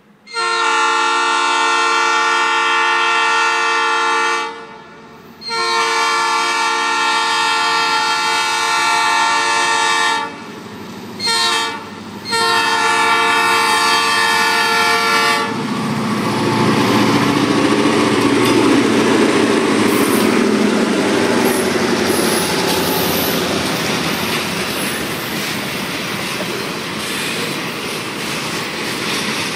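Chime air horn of a Norfolk Southern EMD GP38-2 diesel locomotive sounding the grade-crossing signal: two long blasts, a short one and a long one. Then the two GP38-2s' two-stroke diesel engines rumble past, followed by freight cars rolling over the rails with clickety-clack.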